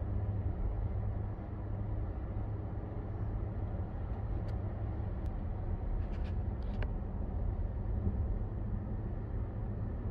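Steady road and engine noise of a car cruising at highway speed, heard from inside the car: a low, even rumble of tyres on the pavement, with a few faint clicks around the middle.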